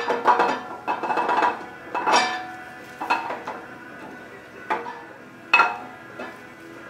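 Steel camshaft of a GM LS V8 (L76) clinking against the block's cam bearings and journal bores as it is worked out through the front of the block by hand. About ten sharp metallic clinks, each with a brief ring, come at irregular intervals; the loudest is at the start and another comes about five and a half seconds in.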